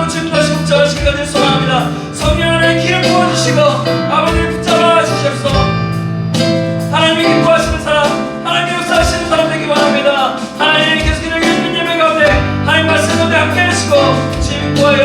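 Church worship band of acoustic guitar, keyboard, bass and electronic drums playing a slow accompaniment, with a low drum beat about once a second, under many voices praying aloud together.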